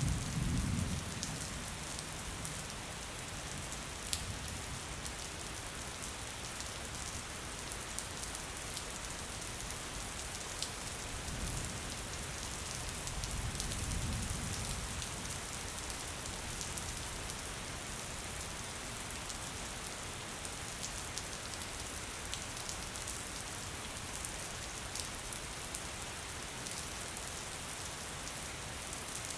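Steady rain falling on a surface, with scattered sharp drop ticks. A low rumble swells briefly at the start and again about halfway through.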